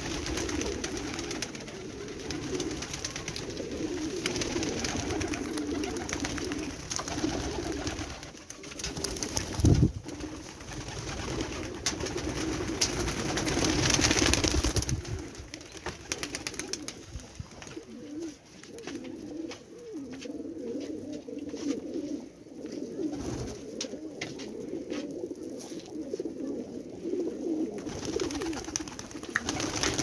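A flock of domestic pigeons cooing continuously, close up, with scattered sharp clicks and taps and one low thump about ten seconds in.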